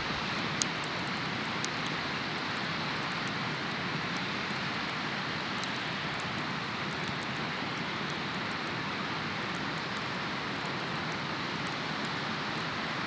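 Campfire of split logs burning: frequent sharp crackles and pops over a steady rushing noise, with one louder pop about half a second in.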